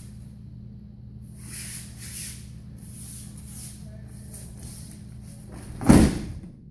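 Judo breakfall on tatami mats: one loud slap and thud about six seconds in as the thrown partner lands from a sacrifice throw in Nage no Kata. Before it, soft sliding of feet on the mats and rustling of the judo uniforms as the pair close in and grip.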